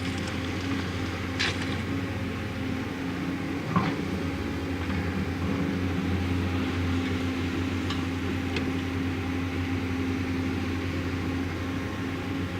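JCB backhoe loader's diesel engine running steadily, with a few short sharp knocks, the loudest about four seconds in.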